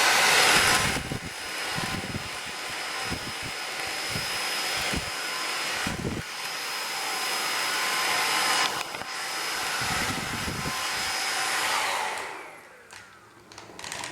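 Xiaomi cordless stick vacuum cleaner running with a steady high whine, its nozzle knocking now and then as it is pushed about; near the end it is switched off and the motor winds down.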